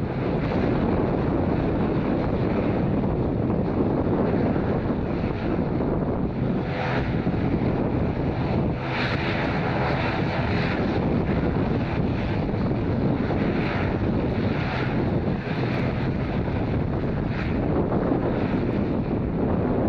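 Twin turboprop engines of an ATR 42-600 airliner running as it taxis, a steady drone with the propellers turning, mixed with wind buffeting the microphone that swells and fades every few seconds.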